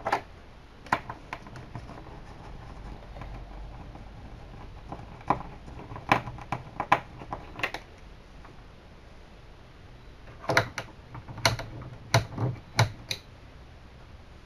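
Irregular sharp clicks and taps of a screwdriver and screws against the metal and plastic back of an all-in-one computer as screws are taken out, in two clusters: one about five to eight seconds in, another from about ten and a half to thirteen seconds.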